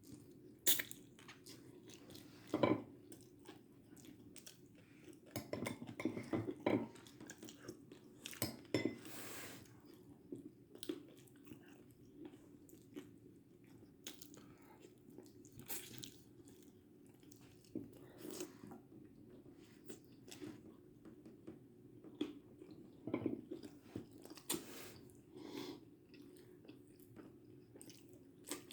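Faint, irregular crunches and clicks, coming every second or two, over a low steady hum.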